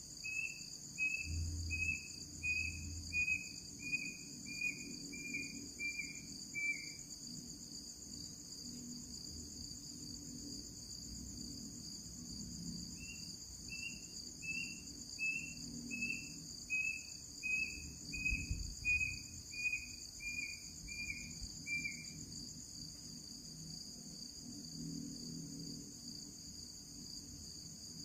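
Crickets chirring steadily, with a run of short, slightly falling calls from an unseen night animal repeated about one and a half times a second. The calls stop about a quarter of the way in and start again in a second run of about nine seconds.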